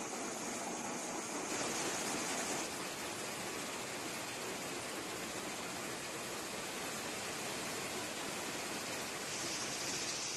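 Steady rushing noise of a running sand-making plant, its belt conveyor and vibrating screens carrying and sifting crushed rock. The hiss brightens briefly about two seconds in and again near the end.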